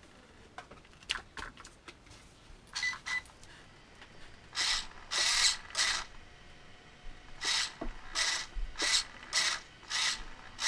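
Steering servo of a Redcat Blackout SC RC truck whirring in short bursts as the front wheels are steered back and forth, with its servo saver just pressed back together. After a few light clicks, the bursts start about four seconds in and repeat roughly every two-thirds of a second.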